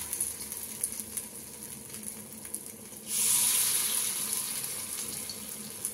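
Hot oil sizzling and crackling in an appe pan as rava (semolina) and vegetable batter fries. About three seconds in, a spoonful of batter goes into a hot oiled cavity and the sizzle jumps suddenly louder, then fades slowly.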